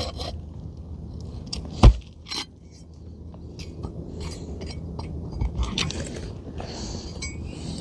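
Crackling scrapes and clicks of hand work on asphalt roof shingles while loosening nails under a shingle, with one sharp knock about two seconds in and a smaller one just after. A steady low rumble runs underneath.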